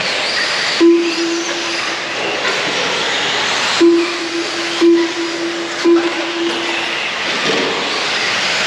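Electric off-road RC cars running on the track, a steady whirring hiss of motors and tyres, with a low beep sounding several times, mostly about a second apart.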